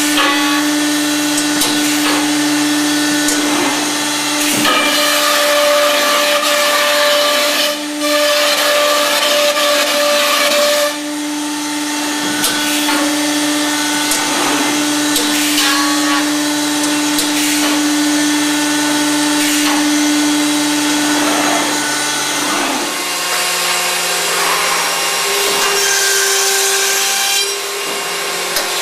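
Accu-Systems VX CNC panel machine running: its spindles whine steadily while the router cuts particleboard, with a rough cutting noise that swells and drops off several times as the tools engage and lift. The spindle whine steps up in pitch a little after twenty seconds in.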